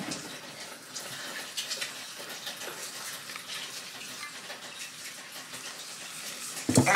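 Water running from a kitchen tap, with small splashes as hands are rinsed under it, and a louder thump near the end.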